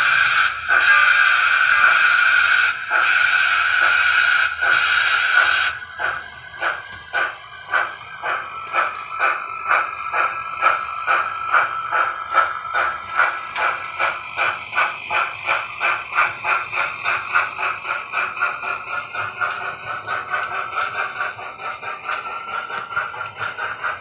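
Soundtraxx Tsunami DCC sound decoder in an HO scale brass Norfolk and Western 4-8-2 steam locomotive, playing through the model's small onboard speaker. A chime whistle blows in long blasts for about six seconds. Then steam exhaust chuffs start at about two a second and quicken to about four a second as the locomotive picks up speed, growing fainter toward the end.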